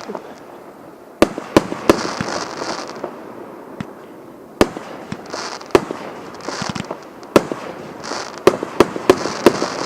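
Fireworks going off: about ten sharp bangs of bursting shells at uneven intervals, some in quick clusters, with short crackling hisses in between.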